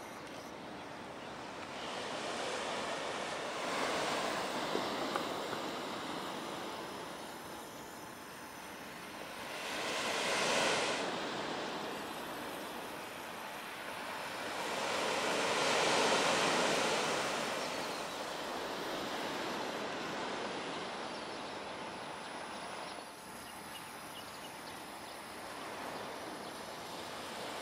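Surf breaking and washing up a beach, a steady hiss that swells and fades in slow waves every several seconds.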